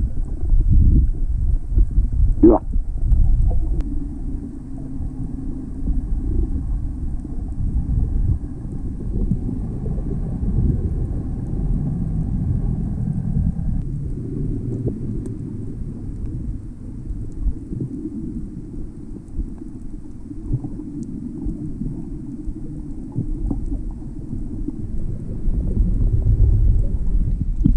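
Muffled low rumble of water moving around an underwater camera's housing, with a few faint clicks.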